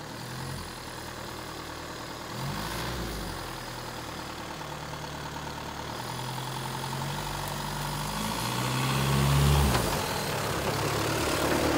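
Toyota 15B four-cylinder diesel engine in a rock-crawler buggy pulling at low revs over a log obstacle. The revs rise briefly about two and a half seconds in, then build to the loudest point near the end before dropping back.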